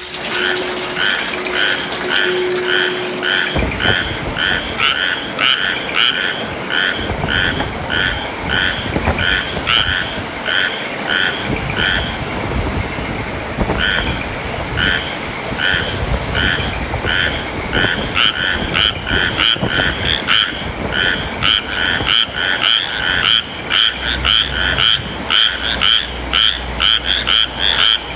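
Frogs calling: short croaks repeating about twice a second, pausing briefly about twelve seconds in and growing denser toward the end, over a steady hiss of rain.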